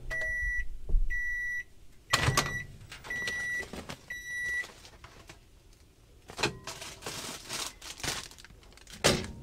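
Convection microwave oven beeping at the end of its cooking cycle: five short, high beeps about a second apart. In between come the clunk of its door being opened and the crinkle of a plastic steam-bag being handled, and a knock near the end as the door is shut.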